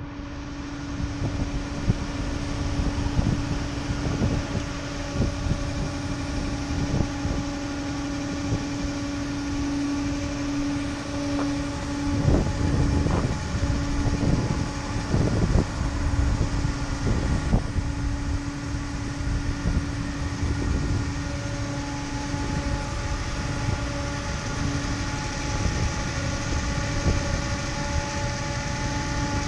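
Steady mechanical hum with a constant whining tone and its overtones, over irregular low buffeting that is heaviest from about twelve to sixteen seconds in.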